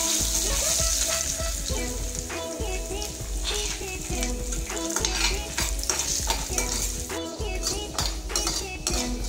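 Ghee and oil sizzling in a stainless steel kadai as peppercorns, cumin, curry leaves and cashew nuts fry, with a steel ladle stirring and scraping against the pan. The sizzle is strongest at the start and eases off, broken by many short clicks and scrapes.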